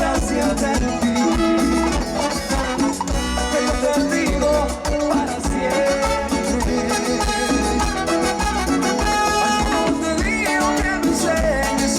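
Live band playing Latin tropical dance music with a steady beat and brass.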